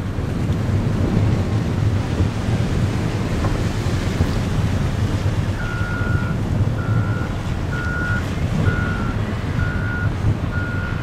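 Diesel locomotives led by a CSX unit rumbling steadily as they roll slowly forward. About halfway through, a backup alarm starts beeping, about one beep a second.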